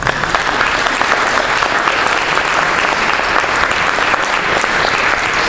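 An audience applauding: dense, steady hand-clapping that breaks out suddenly as a lecture ends.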